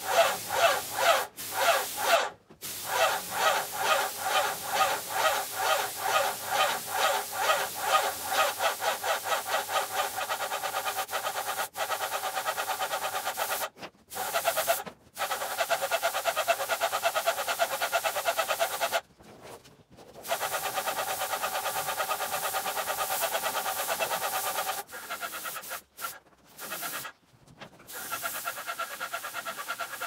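Graco airless paint sprayer running while spraying, its pump pulsing fast and regularly under a steady pitched whine. The sound cuts out abruptly several times.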